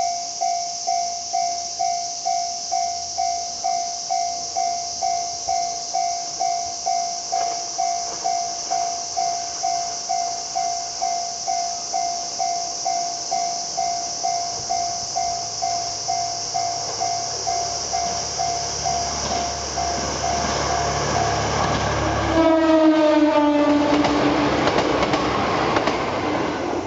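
KTR001 'Tango Explorer' diesel express railcar approaching with a low rumble that builds up. Late on it sounds its horn at a whistle sign for an unguarded level crossing: a loud horn chord whose pitch drops slightly as it passes, then the rush of the train going by. Under it, a steady high hiss and a pulsing tone about twice a second.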